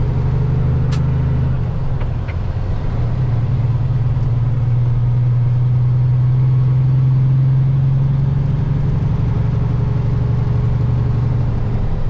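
Diesel engine of a semi truck under load with a heavy trailer, heard from inside the cab. It runs steadily, with a brief dip in its note about two seconds in.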